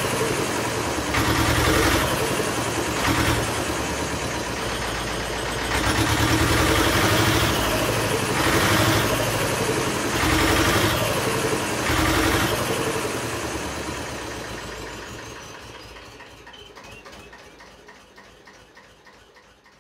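An engine running, with surges in level about every two seconds, fading out steadily over the last several seconds.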